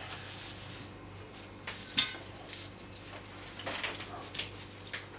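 Light clicks and clinks of small metal parts being handled and set down, with one sharp clack about two seconds in.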